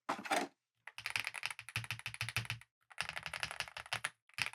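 Typing on a Chilkey ND75 75% mechanical keyboard, its keys clacking in quick runs with short pauses between them. The switches give a higher-pitched clack.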